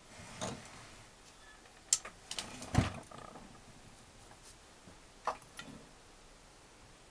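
Clanks and knocks of an NSU Max 250 engine crankcase being turned over onto its side on a wooden workbench, with the heaviest thump about three seconds in. A couple of lighter metal clicks follow a little after five seconds as work starts at the piston.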